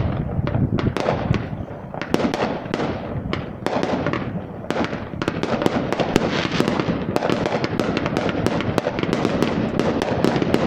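Fireworks going off in rapid succession: many sharp cracks and pops, growing denser after about halfway into a near-continuous crackle.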